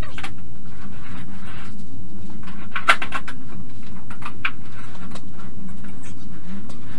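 Hand roller sheet bender being run along the edge of a thin (0.7 mm) painted galvanized steel sheet: irregular clicking and squeaking of the rollers and the flexing sheet, with one sharper metallic snap about three seconds in.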